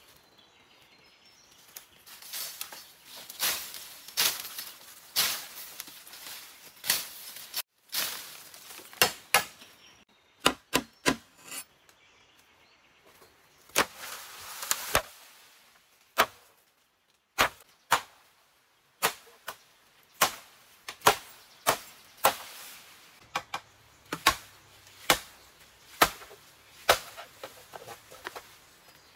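Machete chopping into bamboo stalks: a long series of sharp wooden strikes, roughly one a second, with a short pause and a swell of rustling bamboo leaves about halfway through.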